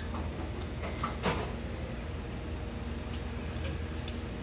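A stainless-steel tray with a wire rack knocks down onto a metal counter about a second in. Fainter clicks of metal chopsticks on the rack follow near the end, over a steady low hum.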